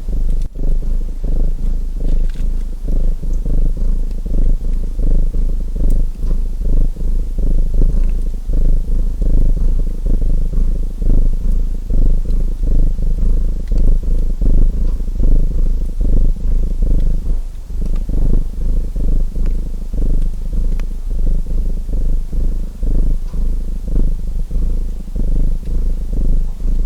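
Domestic cat purring loud and close, swelling and fading about once a second with its breathing, with a few faint pops of a crackling wood fire.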